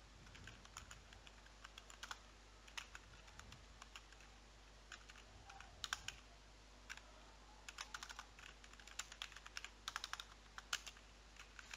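Faint computer keyboard typing: scattered single keystrokes at first, then quick runs of keys in the second half.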